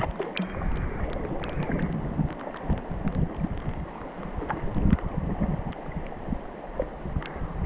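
Paddling an inflatable kayak on calm water: small splashes and drips from the paddle strokes, with wind rumbling on the microphone.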